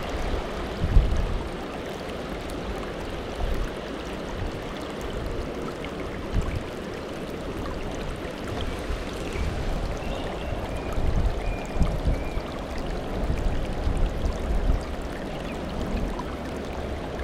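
Mountain stream water running steadily, an even rushing flow of the upper Tama River.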